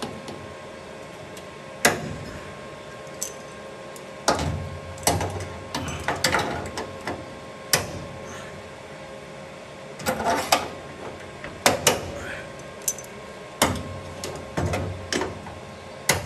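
Locking C-clamps being fitted and clamped shut onto a steel chassis rail and plate: about a dozen scattered metallic clicks and clacks, some in quick pairs, over a faint steady hum.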